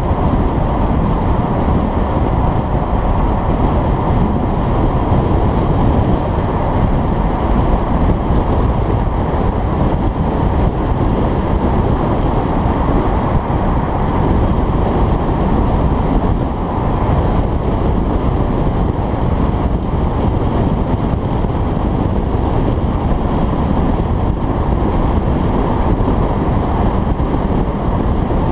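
2011 Jaguar XKR 175's supercharged V8 and exhaust, with fuse 19 pulled, running steadily while the car cruises, under a constant rush of wind on the microphone.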